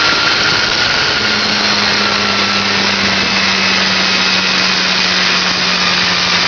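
Small piston engine of a homemade single-seat helicopter running steadily with its main rotor turning. About a second in, a steady low hum sets in on top of the loud engine noise and holds.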